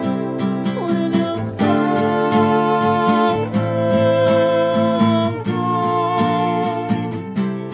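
Live acoustic folk music: a strummed acoustic guitar with a man singing and a violin playing long bowed notes.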